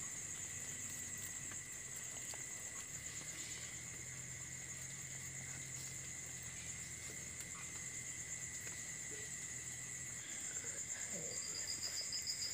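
Crickets trilling steadily in a high, continuous chirr, with a second, slightly lower trill joining near the end.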